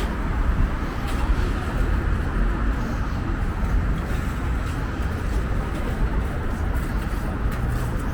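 City street traffic: a steady low rumble of passing motor vehicles' engines and tyres.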